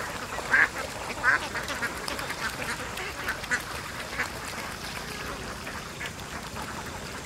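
A large flock of domestic ducks quacking, a dense overlapping chatter of short calls, with two louder quacks close by in the first second and a half.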